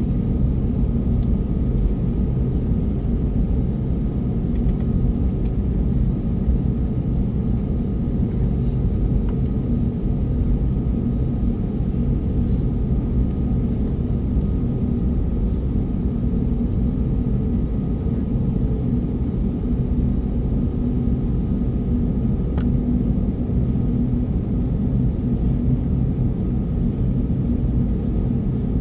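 Steady low rumble of an Airbus A321neo's CFM LEAP-1A engines at taxi power, heard from inside the cabin, with a faint steady whine above it.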